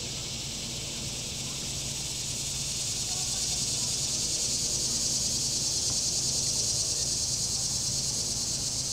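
Cicadas buzzing: a high, fast-pulsing drone that swells to its loudest midway and eases off near the end, over a faint steady low hum.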